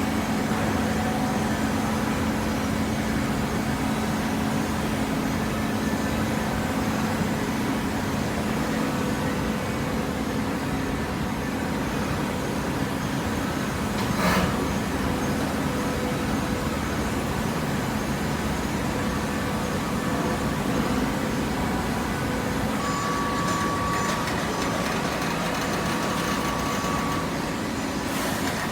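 Hydraulic cardboard baling machine running: a steady mechanical drone with a low hum, one short sharp knock about halfway through, and a thin steady whine near the end.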